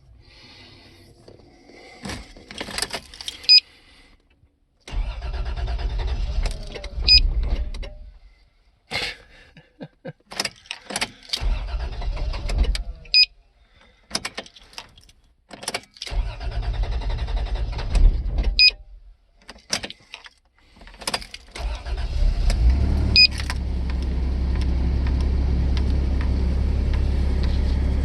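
Toyota 3VZ-E V6 engine in a second-generation 4Runner cranking over several times with key clicks between tries. Three cranks of about two seconds each fail to start it, and on the fourth try, about 22 seconds in, it catches and settles into a steady idle. This is the intermittent hard start that the owner blames on the distributor or the engine computer.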